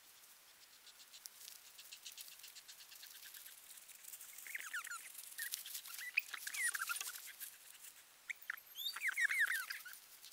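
Footsteps crunching and rustling through dry leaf litter, with the rustling getting louder and busier toward the second half. Three brief clusters of high chirping, gliding calls sound over it near the middle and near the end.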